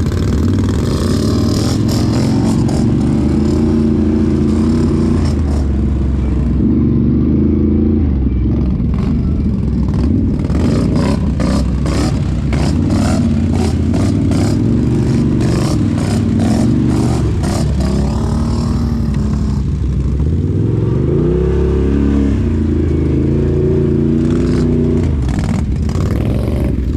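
Engine of a Can-Am 1000cc off-road machine, a V-twin, running under load on a trail, its pitch rising and falling as the throttle is worked. Through the middle comes a run of clattering knocks as it crosses rough, dry ground, with the engine revving up again near the end.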